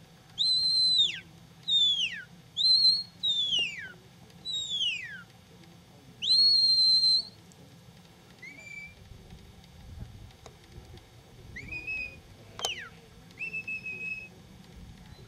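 Sheepdog handler's whistle commands to a working border collie: a run of sharp whistle blasts, some held flat and some falling steeply in pitch, with a long held note about six seconds in. Later whistles come fainter and lower. A sharp click sounds about twelve seconds in.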